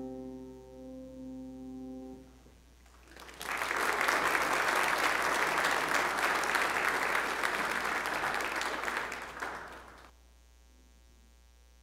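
The last piano chord of a song dies away, then a congregation applauds for about six seconds before the clapping stops.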